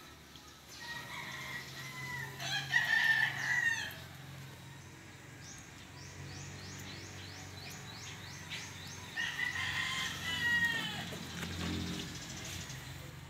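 A rooster crowing twice, once starting about a second in and again about nine seconds in, each crow a few seconds long and falling away at the end. A quick run of light ticks comes between the two crows.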